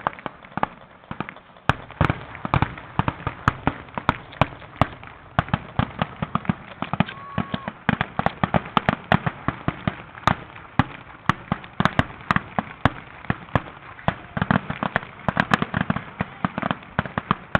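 Fireworks finale: aerial shells bursting in rapid, near-continuous succession, several bangs a second, the barrage thickening about two seconds in.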